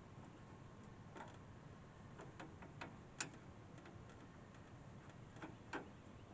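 Faint, scattered clicks and taps, the sharpest about three seconds in, from a screwdriver working the front cover off a window air conditioner.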